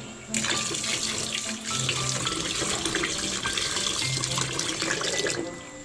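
Tap water running into a bowl of rice in a sink while a hand swishes the grains to rinse them. The water comes on just after the start and cuts off near the end.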